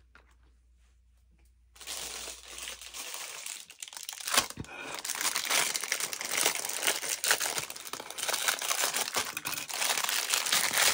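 Thin plastic packaging bag crinkling and rustling as it is cut with small scissors and pulled off a silicone mold. It starts about two seconds in and carries on irregularly, with a sharp click about four seconds in.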